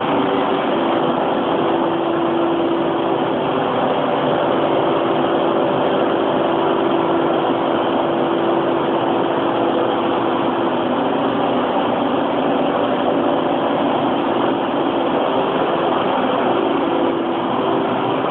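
A machine running steadily: a constant mechanical drone with a steady hum in it.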